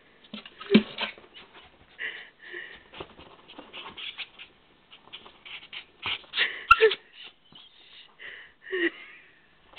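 Small terrier-mix dog whining and yipping in excitement, in short, falling cries with panting and sniffing between them. A sharp click about seven seconds in.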